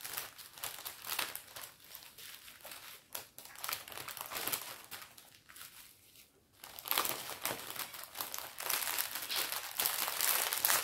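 Plastic packaging crinkling and rustling as it is handled, with a brief lull just past halfway before the crinkling gets louder.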